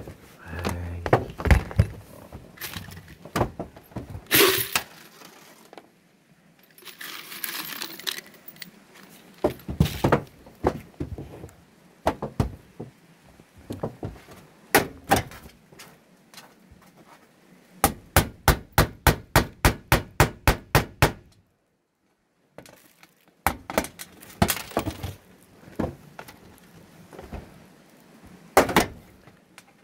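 Hammer blows and knocking on sheet-metal roofing: scattered knocks, then a quick even run of about a dozen strikes at roughly four a second, then more knocks after a short pause.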